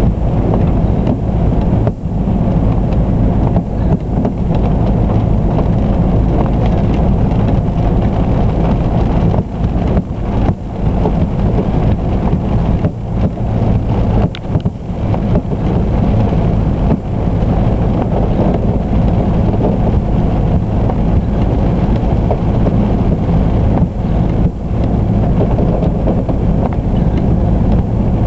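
Steady wind rumble buffeting the microphone, over a low steady hum.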